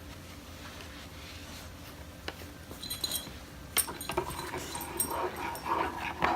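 Light clicks and taps, then a high, wavering whine from about four seconds in.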